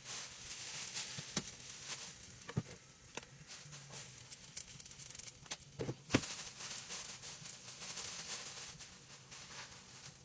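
A plastic grocery bag rustling and crinkling as it is handled, over a steady faint hiss, with a few light clicks and knocks, the loudest about six seconds in.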